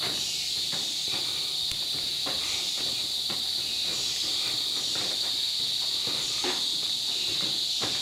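Rainforest insect chorus: a steady high-pitched drone, with a higher buzz that comes and goes every second or so. Under it, the footsteps of people walking on a wooden boardwalk land about one or two a second.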